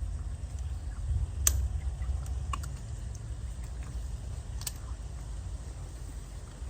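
Hands working a taped plumbing fitting onto a water line: a few sharp clicks and taps, the loudest about a second and a half in and another near five seconds, over a steady low rumble.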